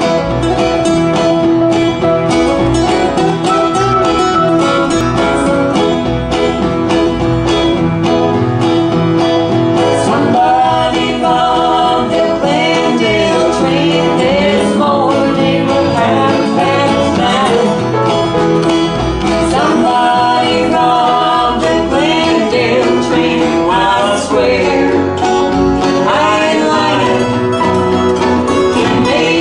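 Live acoustic country-folk band playing: strummed acoustic guitars with a harmonica, and a woman's lead vocal coming in about ten seconds in.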